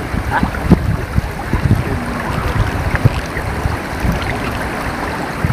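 Wind buffeting the microphone: an uneven low rumble with irregular gusty thumps.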